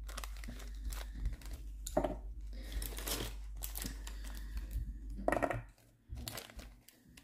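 Small plastic bag of chunky nail glitter crinkling as it is handled, a run of sharp crackles with louder bursts about two, three and five seconds in.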